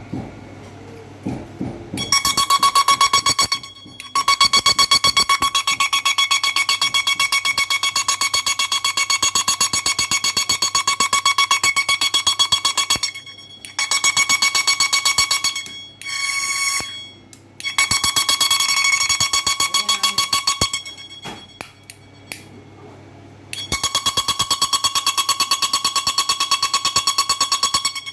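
Electric shock fishing machine's output discharging into water, giving a loud, high, pulsing electrical buzz. It switches on and off in bursts several seconds long, with short gaps between them.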